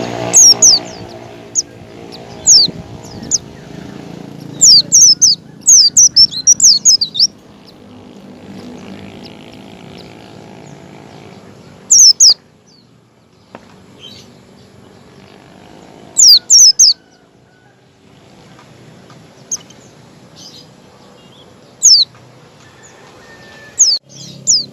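Pleci (white-eye) calling: sharp, high, downward-sweeping chirps in quick clusters, with a fast run of them a few seconds in and further short bursts spaced several seconds apart. A fainter steady low hum runs beneath them at times.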